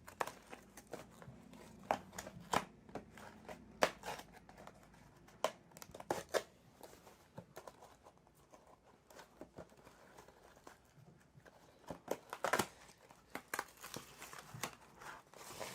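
Toy packaging being opened by hand: irregular crinkling, tearing and sharp crackles, with a cluster of louder crackles about twelve seconds in.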